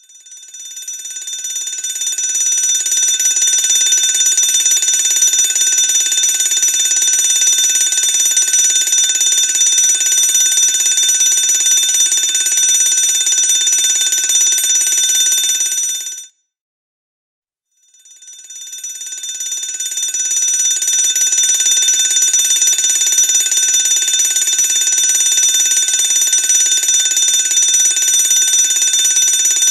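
Fire alarm bell ringing continuously in a loud, steady ring. It swells up over the first couple of seconds, cuts off suddenly about 16 seconds in, then starts again after a second and a half of silence and rings on.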